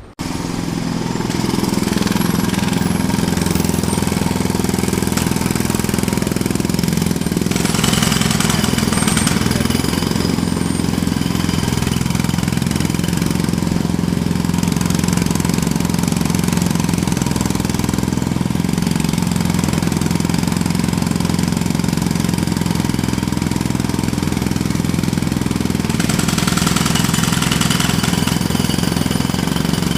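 Jackhammer hammering continuously in rapid strokes. It begins abruptly, and turns brighter and harsher briefly about a quarter of the way in and again near the end.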